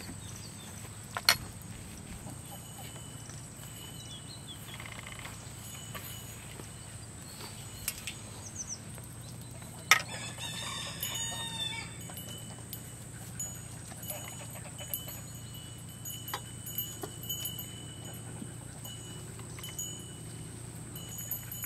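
Farmyard ambience with a rooster crowing once, about ten seconds in. Two sharp clicks, one early on and one just before the crow.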